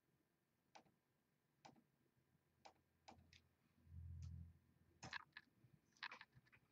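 Faint computer mouse clicks, single clicks spaced about a second apart, during copy-and-paste work on a computer. A brief low hum comes about four seconds in, and a quicker cluster of louder clicks and rustling comes near the end.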